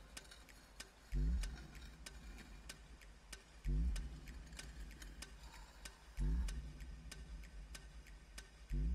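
Soundtrack sound design: dry ticking clicks, several a second, under a deep low thump that slides up in pitch, repeating about every two and a half seconds, four times.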